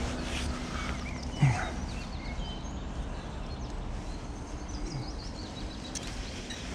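Small birds chirping in short, scattered calls over steady outdoor background noise, with one brief knock about a second and a half in.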